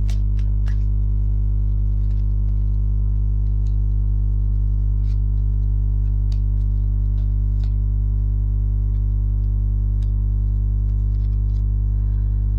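Background music of steady, held low drone tones, with faint light clicks scattered over it.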